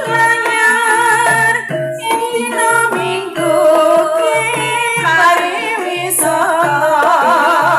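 Banyumas-style gamelan music for an ebeg dance, with a woman's sung melody wavering over sustained instrumental tones and a regular low beat.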